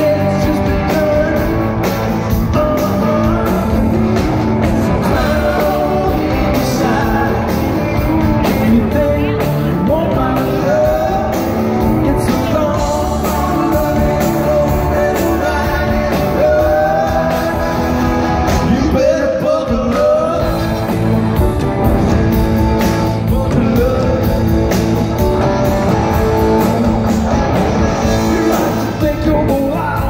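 Live country-rock band: a male lead vocal sung over two electric guitars and a drum kit, loud and steady throughout.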